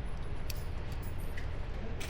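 Low, steady outdoor rumble with a faint sharp click about half a second in.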